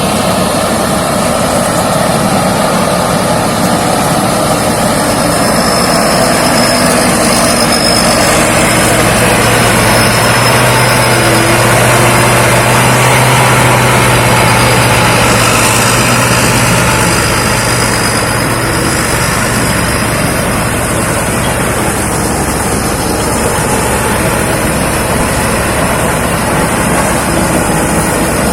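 Thai Seng 'Jao Phayu' rice combine harvester running steadily under load as it harvests. A low hum grows stronger about a third of the way in and fades again past the middle.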